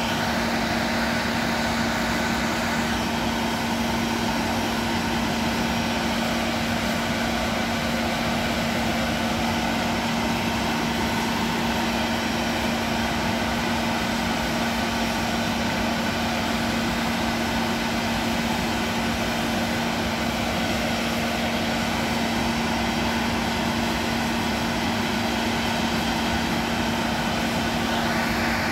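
Steady hum and whine of a parked Boeing 737 jet and its connected ground support equipment at the stand, running unchanged at a constant level while the aircraft waits for pushback.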